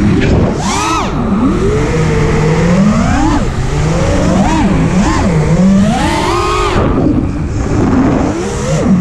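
FPV quadcopter's brushless motors (Garila 2506, 2600 kV) and propellers whining, the pitch sweeping up and down continually with the throttle, over a rush of wind noise on the microphone.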